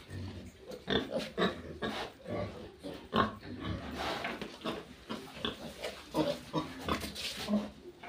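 Pigs grunting in a string of short, separate calls, several close together at times.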